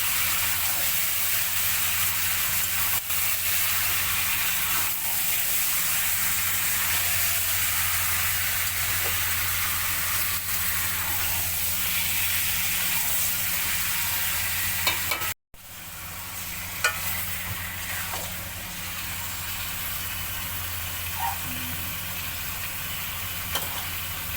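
Chicken and masala sizzling as they fry in a pan while being stirred, with a spatula scraping and clicking now and then. It is the bhuna stage of a chicken curry. The sound breaks off briefly about 15 seconds in and resumes a little quieter.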